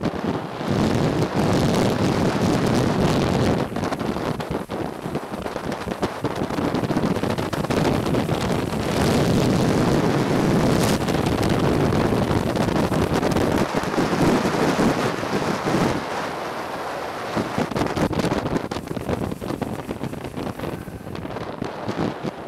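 Wind rushing over the microphone at downhill longboarding speed, a loud steady roar that eases a little near the end.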